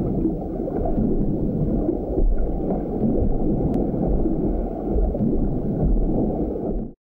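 Muffled underwater noise as heard through a camera's underwater housing: a steady low rumble and gurgle that swells and eases a little and cuts off suddenly near the end.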